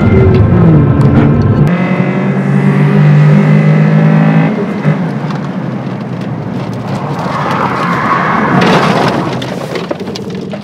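A car engine drops in pitch, then runs at steady revs for a few seconds. It gives way to a swelling rush of tyre and road noise, which fades out near the end.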